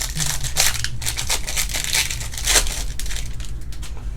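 Crinkling and tearing of a foil trading-card pack wrapper being opened by hand, in a quick run of crackly rustles through the first three seconds that then settles down.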